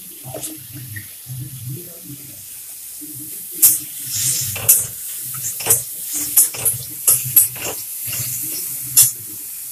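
Steel spatula scraping and clinking against a steel kadai as chopped tomatoes are stirred and fried in oil, over a faint sizzle. The sharp clinks come in a run of about eight from a third of the way in to near the end.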